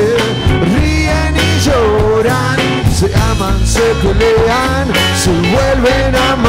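A live rock band playing: a drum kit with the hi-hat and snare struck with rods, under strummed guitars, a steady bass line and a melodic lead line that bends in pitch.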